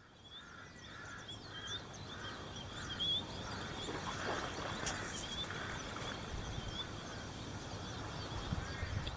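Birds calling outdoors: many short high chirps and whistles, with a lower call repeated about twice a second in the first few seconds, over a soft steady background hiss. The sound fades in over the first couple of seconds.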